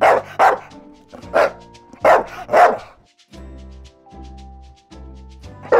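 A dog barking, about five short barks in the first three seconds, over light background music.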